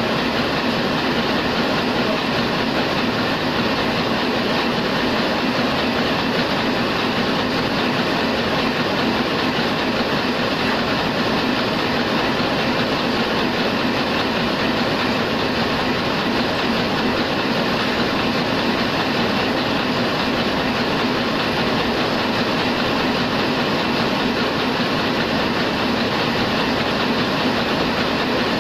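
Heidelberg SORMZ two-colour offset printing press running steadily as it prints, a continuous even mechanical noise with no pauses.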